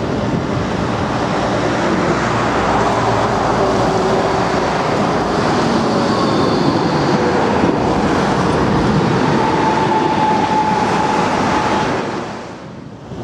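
Low-floor city tram passing close by on street track: a steady rolling rumble of steel wheels on rail, with a few faint whining tones. It fades away about twelve seconds in.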